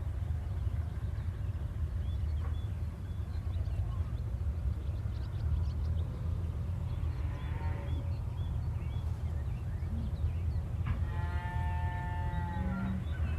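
Steady low rumble of highway traffic with birds chirping. A drawn-out call with several stacked pitches, lasting about two seconds, stands out near the end.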